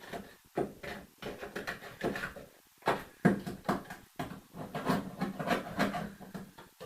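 Irregular metallic knocks and clanks, a few a second, from sheet-steel repair pieces for a car's sill being handled and worked into place. The loudest strike comes about three seconds in.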